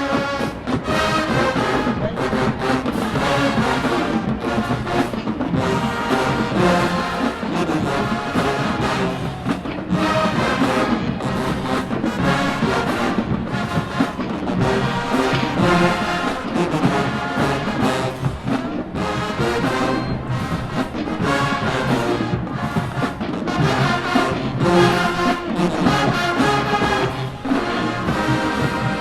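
HBCU-style marching band playing loudly: massed brass over a steady drumline beat.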